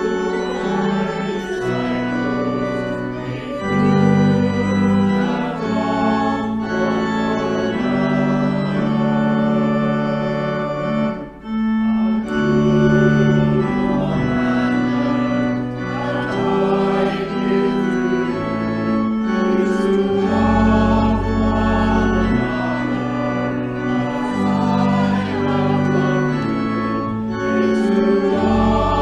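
Church organ playing slow, held chords with deep bass notes in places, accompanying a choir singing an anthem.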